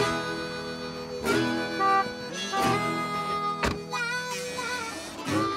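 Background music: a harmonica-like reed melody of held notes over guitar, with one sharp knock a little past halfway.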